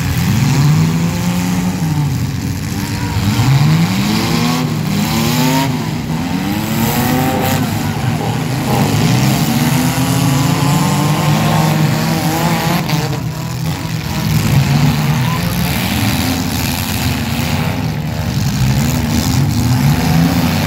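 Several demolition derby cars' engines revving up and down, loud and continuous, with overlapping rises and falls in pitch as the cars accelerate and ram one another.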